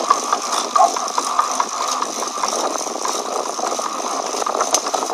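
Bicycle drivetrain turning with a steady rattling, grinding noise and scattered sharp clicks. The noise persists after the rear derailleur was adjusted, and the owner says it also comes from the centre of the bike, the bottom bracket area.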